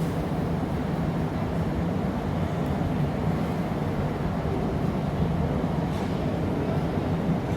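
Steady roar of a glassblowing workshop's gas-fired furnace and glory hole: a constant low rumbling hum that does not change.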